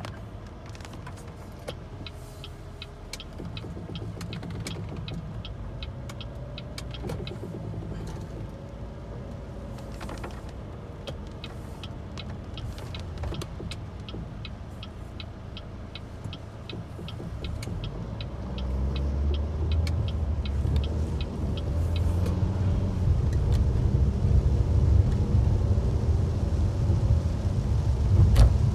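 Rain heard from inside a car: raindrops ticking sharply and irregularly on the windshield over a low engine and road rumble. The rumble grows much louder about two-thirds in as the car gets moving on the wet road.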